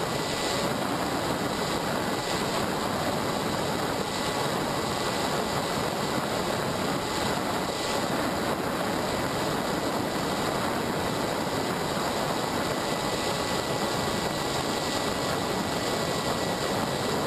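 Motors and propellers of a small remote-controlled aircraft running steadily, heard from the camera riding on it: a dense buzz with a steady high whine.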